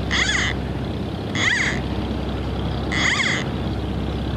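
A bird calling three times, about a second and a half apart, each call short and rising then falling in pitch. Under the calls runs the steady low drone of a pump draining the gravel-pit lake.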